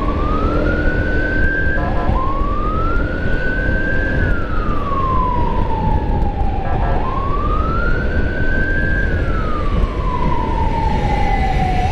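Emergency vehicle siren on a slow wail, its pitch climbing, holding briefly and then sliding down, about three times, over a steady low rush of wind and road noise from riding.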